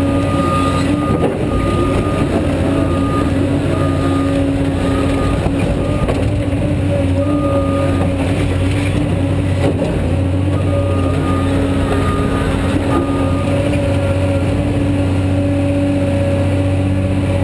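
Caterpillar 345D hydraulic excavator's diesel engine running steadily under working load as the machine digs and swings its bucket. A higher-pitched tone comes and goes in short pulses over it several times.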